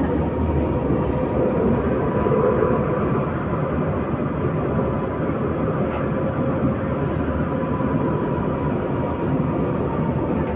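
Steady rumble and rail noise inside a moving passenger train car, with a faint steady whine running through it.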